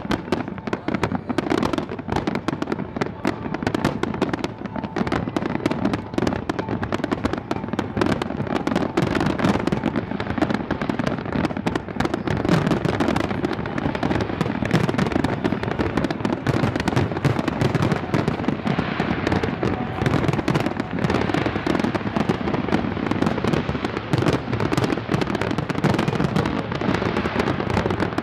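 Fireworks display: a dense, unbroken barrage of bangs and crackles going off one over another.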